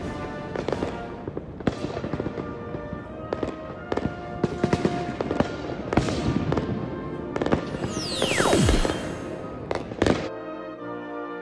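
Fireworks shells bursting in quick, irregular bangs over background music, with a long falling glide in pitch about eight seconds in. The bangs stop about ten seconds in and the music carries on.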